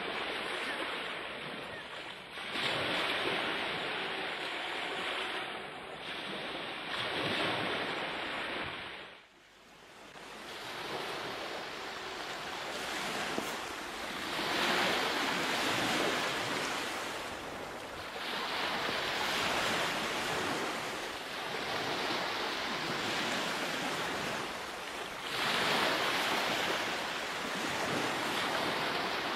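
Ocean surf: waves washing in, swelling and fading every few seconds, with a short dip about nine seconds in.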